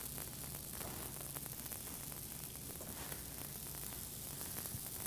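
Faint steady sizzle of pancake batter cooking on a hot griddle, with a low hum under it.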